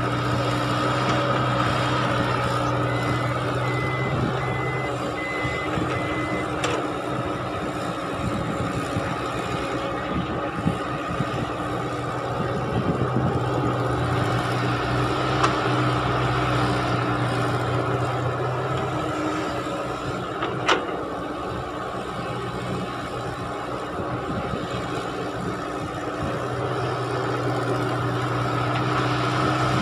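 Caterpillar tracked excavator's diesel engine running steadily under hydraulic load as it digs and loads soil into a dump truck. A short run of about five evenly spaced high beeps sounds about 3 to 6 seconds in. A sharp knock comes about 21 seconds in.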